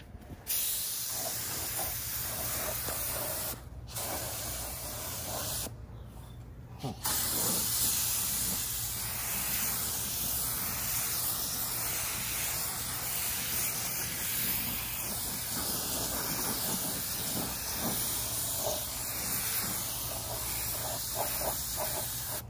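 Compressed-air gravity-feed spray gun hissing as it sprays paint, triggered in bursts: it starts about half a second in, stops briefly about four seconds in and for about a second around six seconds in, then sprays steadily.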